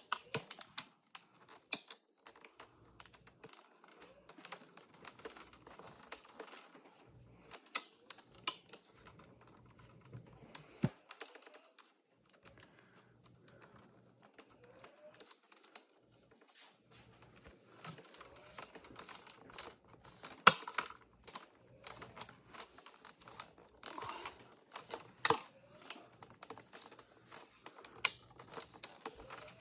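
Irregular plastic clicks and taps from a 2009 polycarbonate MacBook's bezel being pressed and worked back into place by hand, with one sharper snap about two-thirds of the way through.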